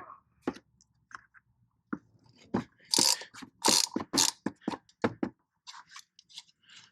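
Irregular clicks, knocks and short scrapes of a hand socket or wrench working on the strut-tower bolts, which are being loosened. The clicks are loudest and closest together around the middle.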